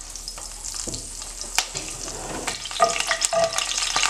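Curry leaves sizzling and crackling in hot coconut oil in a cast-iron skillet, growing louder, with sharp pops, while a wooden spoon stirs them in the pan.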